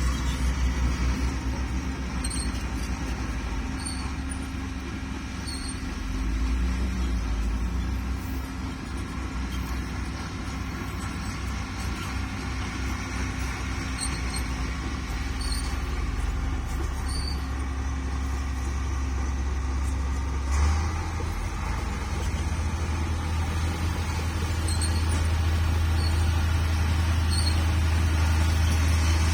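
Heavy vehicle engine running with a steady low drone that shifts in pitch about two-thirds of the way through, with a brief knock at the change. Short high chirps repeat every second or two over it.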